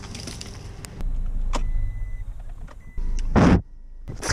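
Car sounds: a low steady hum with a few small clicks, then a short loud thump a little over three seconds in as the car door is opened.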